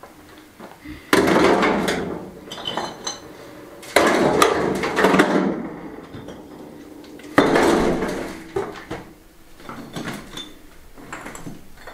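Broken chunks of a concrete slab being thrown into a metal wheelbarrow: three loud clatters, each rattling on for a second or two, with smaller knocks of rubble being gathered between them.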